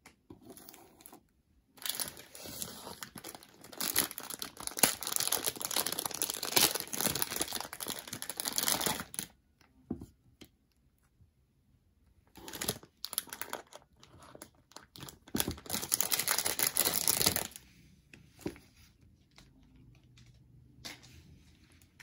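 Clear plastic packaging bag crinkling and rustling as a novelty AirPods case is pulled out of it by hand, in two long stretches with a pause between.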